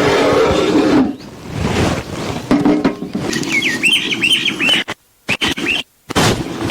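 Birds chirping in quick runs of short falling high notes, after a louder animal call about a second long at the start. The sound drops out twice, briefly, near the end.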